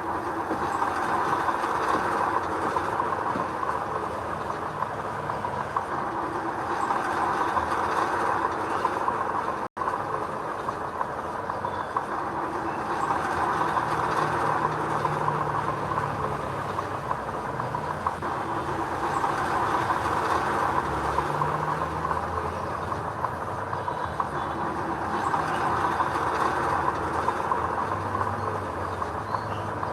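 Heavy earthmoving machinery running: a steady, loud mechanical din with diesel engine tones shifting in pitch underneath. The sound cuts out for an instant about ten seconds in.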